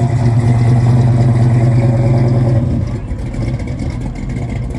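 Classic Chevrolet Chevelle's engine running with a deep, steady rumble as the car rolls slowly past, easing off in level a little under three seconds in.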